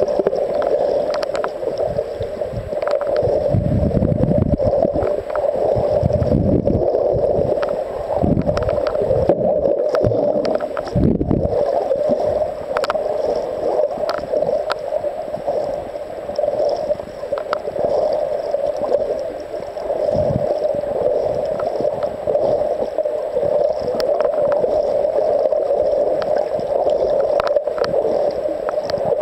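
Underwater ambience recorded through a submerged camera: a steady hum with gurgling water movement and scattered faint clicks, and heavy low rumbles of water and handling from about three to twelve seconds in.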